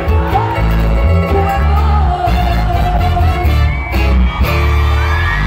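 Loud Latin American popular music with a heavy bass line and a long held melody note in the middle; the bass stops near the end.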